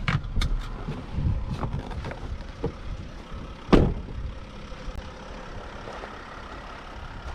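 Winnebago Revel 4x4 camper van running slowly over a rough logging road, engine rumbling low, with a few knocks and rattles and one loud clunk a little under four seconds in.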